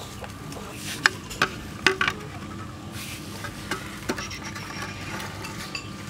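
Sharp clicks and knocks of a plastic plate and grilled catfish being handled against a wire grill rack, several close together about a second or two in and a couple more a little later, over a faint steady high hum.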